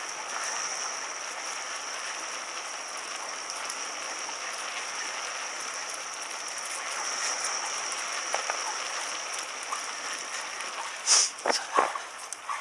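Bicycle rolling along a paved street, giving a steady hiss and rattle, with a few sharp knocks about eleven seconds in.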